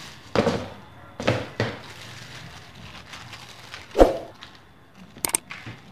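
Thin black plastic bag rustling and crinkling in short bursts as it is handled and spread on a table, with a louder thump about four seconds in. A few sharp clicks near the end.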